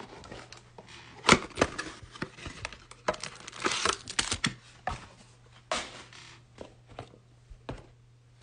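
A cardboard trading-card hanger box being opened by hand and its stack of cards pulled out: scattered tearing, crinkling and sharp clicks, with a steady low hum underneath.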